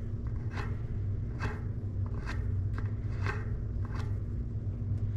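Origin 8 freewheel being threaded onto the rear hub by hand: short metal scraping strokes about once a second as it is turned down the threads until snug, over a steady low hum.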